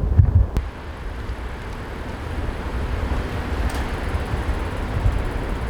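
Outdoor street traffic noise: a steady rush with a low rumble that swells gradually, as of a vehicle passing.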